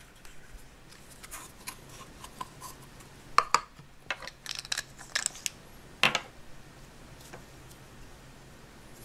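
Hard plastic Play-Doh toy pieces handled and set down on a table: scattered light clicks and taps, with sharper knocks about three and a half and six seconds in.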